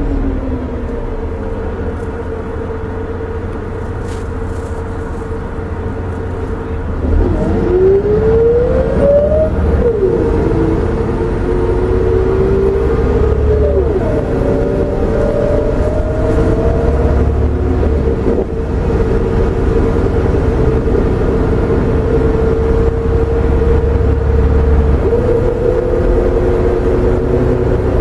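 Volvo B7R coach's rear-mounted Volvo D7C 7-litre six-cylinder turbo diesel heard from inside the cabin, quieter at first, then pulling harder about seven seconds in. The engine note rises, drops as the ZF Ecomat six-speed automatic changes up, rises again and changes up a second time around halfway, then runs on steadily.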